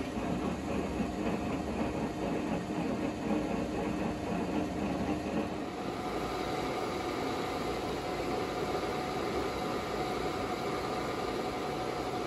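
Super Tec STC-20 centerless grinder running under power: a steady mechanical rumble with a constant whine over it. About six seconds in, the heavier low rumble drops away and the sound becomes a smoother, steadier hum.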